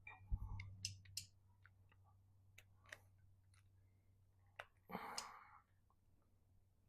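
Faint clicks and light taps of small metal carburetor parts being handled, with a short rustle about five seconds in.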